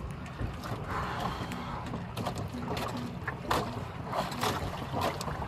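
Wind and water noise on a small outrigger boat, with scattered small drips, splashes and knocks as a wet spearfishing line is hauled in hand over hand.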